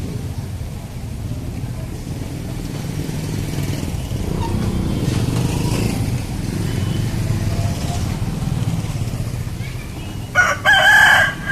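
Rooster crowing: one loud crow starts near the end, over a steady low rumble in the background.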